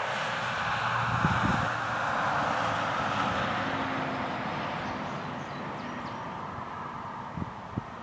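Werden Electric B-115 single-tone siren sounding, its tone fading steadily over several seconds, with light wind buffeting on the microphone.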